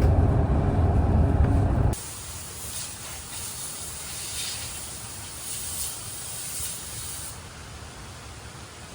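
A loud low rumble for about two seconds, cut off suddenly, then the steady rushing of a mountain stream that swells and eases in its upper hiss.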